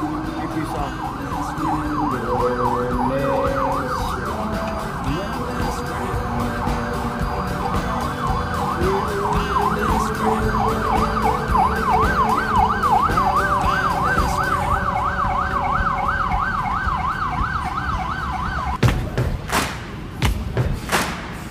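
An emergency vehicle's siren in a fast wail, rising and falling about four times a second, which the caption takes for an ambulance. Near the end it gives way to music with drum hits.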